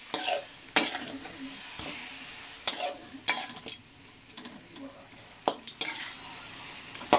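Chicken pieces sizzling in soy sauce in a metal wok, stirred with a metal spatula that scrapes and knocks against the pan at irregular moments.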